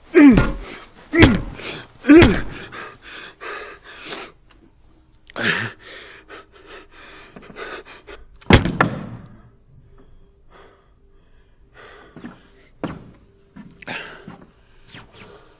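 A man's loud grunts of effort, each falling in pitch, about once a second, stopping a little over two seconds in, then panting breaths. A single loud thud comes about eight and a half seconds in, with a few fainter knocks near the end.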